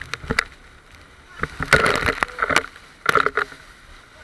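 Water spray splashing and slapping against an inflatable banana boat towed at speed over chop, in three sudden bursts, the loudest about two seconds in.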